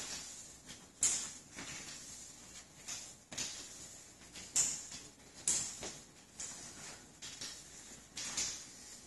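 Flat finish mop sliding over a hard floor as floor finish is spread: a series of soft, hissy swishing strokes, about one a second.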